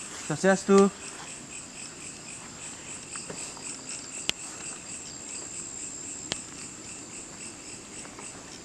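Crickets chirping steadily in a high-pitched, evenly pulsing trill, with two sharp clicks partway through.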